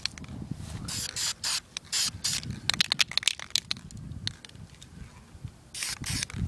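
Aerosol spray paint can spraying in several short hissing bursts, with many sharp clicks and crackles between them.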